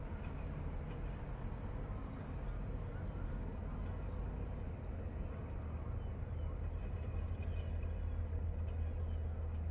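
Early-morning rural ambience: a steady low rumble under a haze of background noise, with many short, high chirps from small birds scattered through it.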